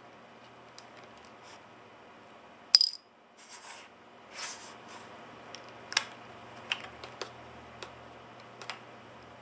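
Small metal clicks and clinks of a screwdriver and screws as the four side mounting screws are taken off a 2.5-inch laptop hard drive. One sharp, ringing metal clink comes near three seconds in and is the loudest sound, with a few lighter clicks scattered after it.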